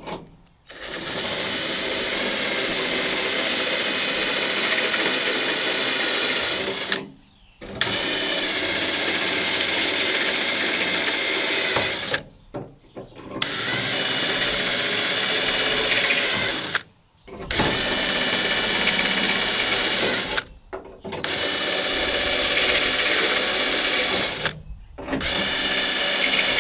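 Cordless 20-volt drill running a step bit into the pickup's body panel, opening screw holes up to a quarter inch. Six runs of steady motor whine, each a few seconds long, with short pauses between.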